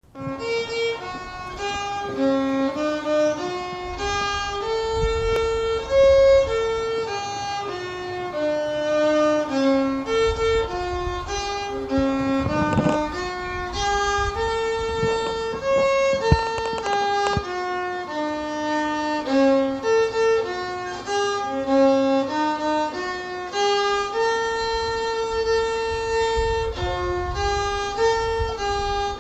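Background music: a slow melody of held notes stepping up and down.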